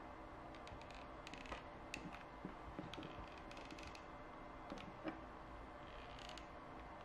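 Faint, scattered small clicks and rustles of jumper wires being handled and pushed into a plastic breadboard, over a faint steady hum.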